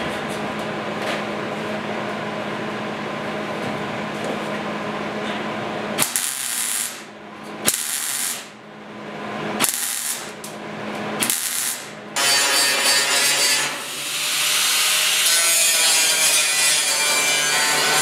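Steady hum for about six seconds, then a MIG welder laying about four short tack welds on sheet steel, each a second or less of crackling with pauses between. About two-thirds of the way in, an angle grinder starts and runs continuously, grinding down the welds.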